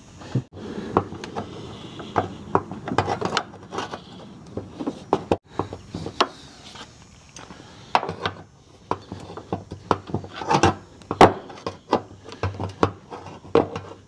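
A wrench clicking, knocking and scraping against a door hinge bolt and the surrounding sheet metal in a tight gap. Irregular sharp clicks come over a low rubbing sound, with the loudest knocks about two-thirds of the way through.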